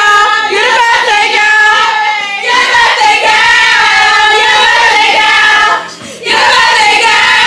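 A high female voice singing a melody in long held notes with vibrato. It breaks off briefly about six seconds in, then resumes.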